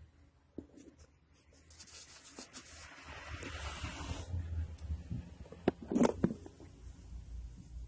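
Handling noise of a camera being moved over a workbench: rubbing and scraping, then a few sharp knocks about six seconds in as it is bumped and set down.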